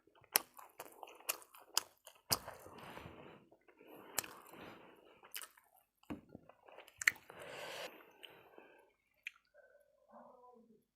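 Close-miked eating sounds: wet chewing with frequent sharp smacks and clicks of the mouth.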